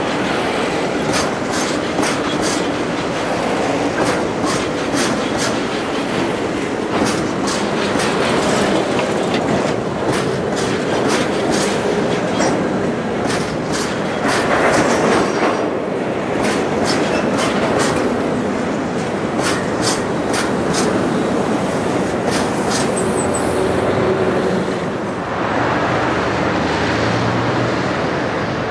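A long rake of railway oil tank wagons rolling past close by, their wheels clicking over the rail joints in quick pairs against a steady rumble. Near the end it gives way to a steadier rumble with fewer clicks.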